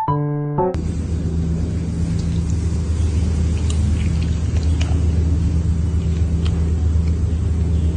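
A steady low rumble with a constant low hum and a few faint clicks, after a piano tune cuts off under a second in.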